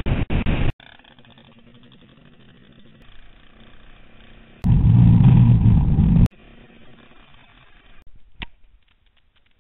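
Onboard audio of an off-road motorcycle riding a gravel track, cut together from short clips: engine running with wind noise on the microphone. It is loud at the very start and again for about a second and a half in the middle, quieter in between, with a single click near the end.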